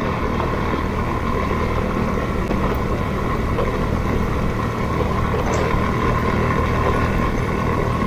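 Motor scooter's engine running steadily while riding, with a steady whine and a haze of wind and road noise.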